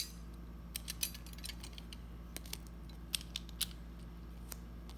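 Light, scattered clicks and taps of small die-cast toy car parts being handled and fitted together, about ten in all, over a low steady hum.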